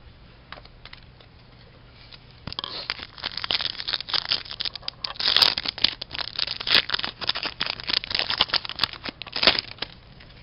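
Foil wrapper of an Upper Deck MVP hockey card pack being torn open and crinkled by hand: a dense, crackling rustle that starts a few seconds in and stops shortly before the end.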